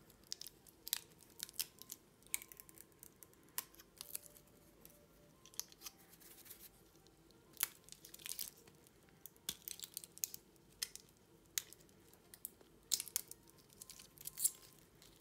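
Protective plastic stickers being peeled off a stainless steel watch bracelet: scattered short crackles and tearing sounds with small clicks.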